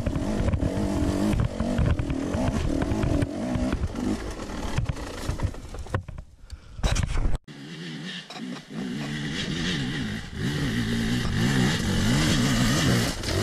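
Two-stroke enduro dirt bike engine revving and easing off as it climbs a rocky hill trail, its pitch rising and falling. About seven seconds in there is a sharp loud knock, then after a short lull a dirt bike revs hard up the slope again toward the end.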